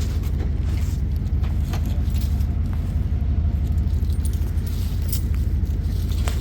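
A truck's engine running steadily with a deep low rumble, along with faint light clinks and rattles.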